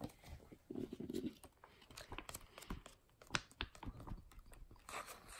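A comic book's page being flipped back and forth by hand for a Flip-O-Rama, with papery rustles and irregular small taps and flaps.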